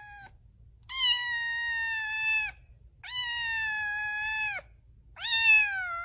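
Kitten giving three long, high meows, each about a second and a half, with short pauses between them.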